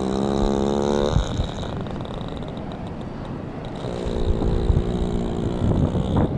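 Wild horse snoring in deep sleep: two long snoring breaths, each holding a steady pitch. The first lasts about a second, and the second starts about four seconds in and lasts over two seconds.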